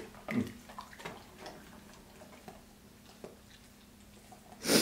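Faint, irregular clicking a few times a second: a Labrador chewing and gulping a piece of raw beef it has just snapped from a hand. A short louder sound comes near the end.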